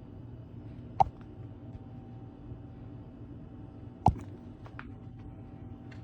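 A cat sneezing twice, about three seconds apart, each a single short sharp burst, with a few fainter short sounds just after the second, over a steady low hum.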